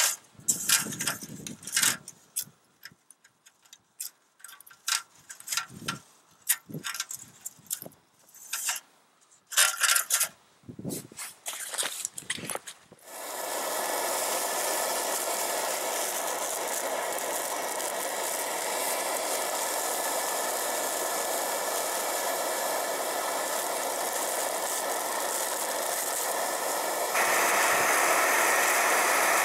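Clicks and rattles of metal stove parts being handled. About 13 seconds in, an MSR XGK liquid-fuel camp stove lights and burns with a steady, loud hiss, which grows louder near the end.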